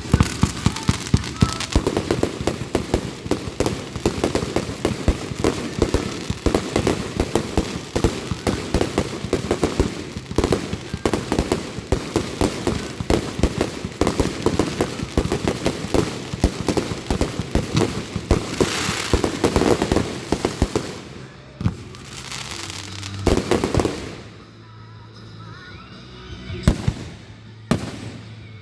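Aerial fireworks going off in a rapid, dense barrage of bangs and crackles for about twenty seconds, thinning to a few separate booms near the end, with music playing underneath.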